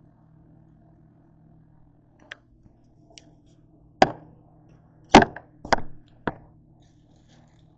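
Several sharp knocks and thuds on a hard countertop: a light tap, then four louder strikes in quick succession, about two seconds apart at first and then closer together, over a faint steady low hum.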